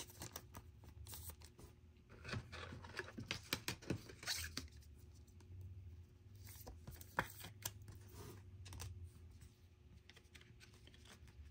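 Trading cards and their packaging being handled: faint scattered scrapes and small clicks, thickest in the first half.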